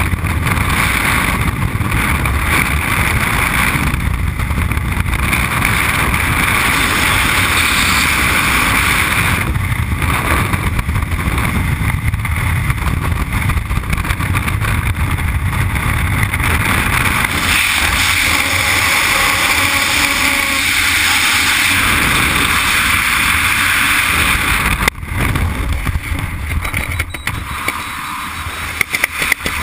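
Freefall wind rushing across the microphone of a skydiver's camera: a loud, steady roar of air. About 25 seconds in it drops suddenly and becomes weaker and gusty.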